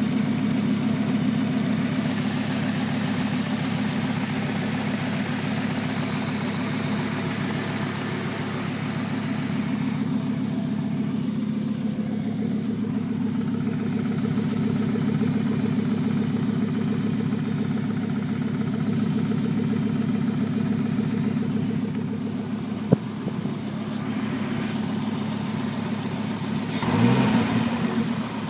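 A 1996 Volvo 850R's turbocharged 2.3-litre inline-five runs steadily at idle, with a knock or tick from the driver's side of the engine that the owner cannot identify and thinks could be normal. There is one sharp click about two-thirds of the way through, and the sound briefly swells near the end.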